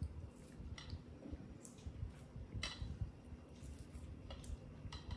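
Faint, scattered small clicks and soft squishes of a mandarin orange being pulled apart into segments by hand while a baby monkey eats a piece.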